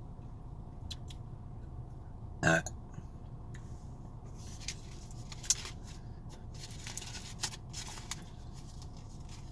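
A short, loud burp about two and a half seconds in, followed by a run of faint clicks and rustling while he eats.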